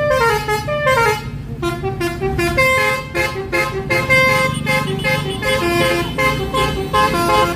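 Bus telolet horn, a multi-tone musical air horn, playing a tune: quick falling runs of notes at first, then a slower melody with held notes, over a steady low hum.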